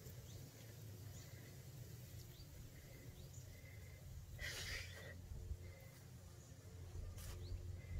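Quiet outdoor lakeside ambience: a steady low rumble with faint, scattered bird chirps. One louder, short, rough bird call comes about halfway through.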